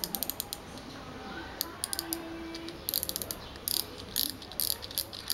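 Spinning fishing reel, size 4000, clicking as it is worked by hand: several runs of rapid ratcheting clicks with short pauses between them.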